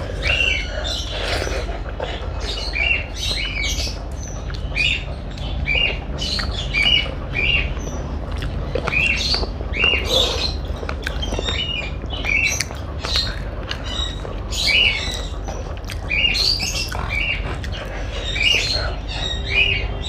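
Close-miked eating sounds: chewing and wet mouth smacks in short, irregular bursts, over a low steady hum.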